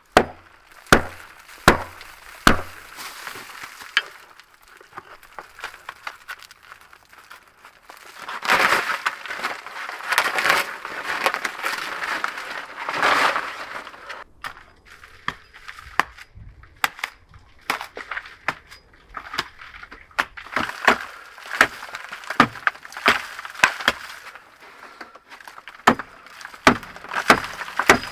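A run of sharp cracks and snaps, with a few seconds of denser crunching and rustling from about eight to fourteen seconds in.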